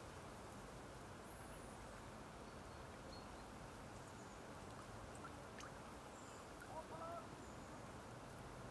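Faint steady background noise over a lake, with one short two-part waterfowl call about seven seconds in and a few faint high chirps.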